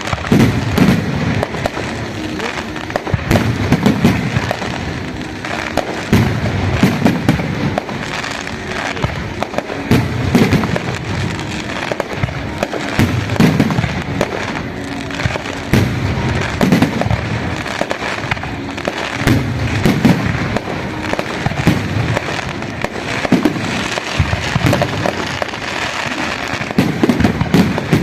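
Fireworks and firecrackers going off without pause, a dense run of sharp pops and cracks with deeper thumps every few seconds.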